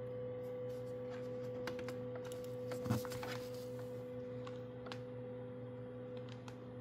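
Bambu Lab A1 3D printer giving off a steady hum of one constant pitch during its auto bed leveling calibration, with a few faint clicks over it.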